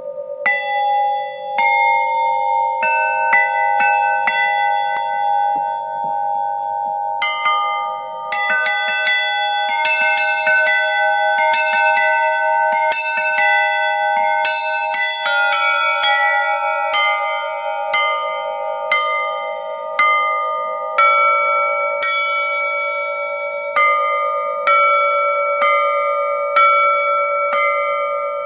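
A set of cast, bowl-shaped clock bells struck one after another with wooden mallets. Each note rings on with long overtones, so the tones overlap into a slightly wavering hum. From about seven seconds in the strikes come faster, about one or two a second, with brighter high overtones.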